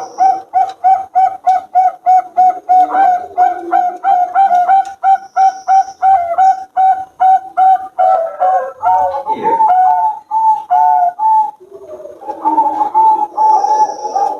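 Zebra doves (Bangkok perkutut) cooing in a fast run of short, evenly repeated notes, about three a second, with a second bird's notes overlapping for a few seconds in the middle. There is a brief pause near the end before the cooing starts again.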